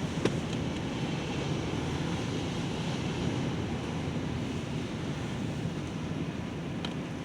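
Storm-force wind gusting at up to about 150 km/h, a steady heavy rush buffeting the microphone. There is a brief faint tick just after the start and another near the end.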